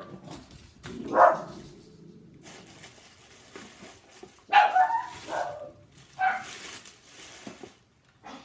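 A dog barking and yipping in short bursts: once about a second in, then a cluster near the middle and another later on.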